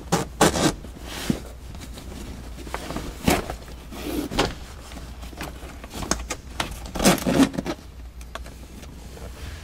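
Zipper of a Factory Five soft-top side window being worked by hand, with the vinyl and fabric handled: scattered short rasps, rustles and light knocks at irregular intervals.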